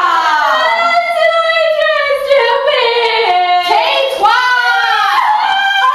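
A girl singing loudly without accompaniment, holding long notes that slide up and down in pitch, in two phrases with a short break about four seconds in.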